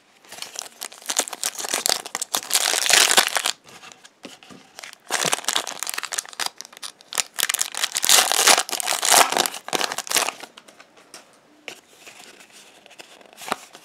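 A trading card pack's foil wrapper crinkling as it is torn open and pulled apart, in two long spells of loud crackling, the second starting about five seconds in. Quieter rustling of the cards being handled follows near the end.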